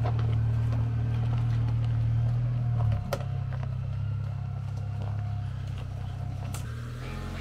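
2023 Chevrolet Colorado ZR2's 2.7-litre turbo four-cylinder engine running low and steady as the truck crawls over rocks, easing off slightly about three seconds in. A sharp knock comes about three seconds in and another near the end.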